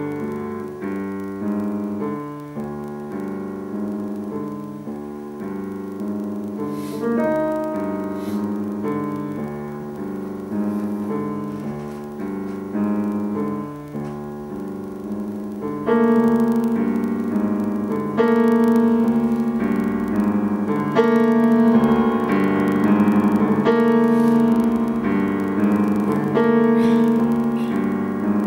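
Piano playing a slow run of struck notes and chords, each ringing and fading away. About halfway through the playing grows louder and brighter, with repeated chords.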